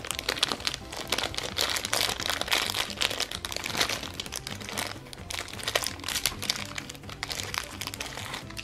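Thin clear plastic wrapper crinkling and crackling as it is worked open and pulled off a small toy keychain, with background music underneath.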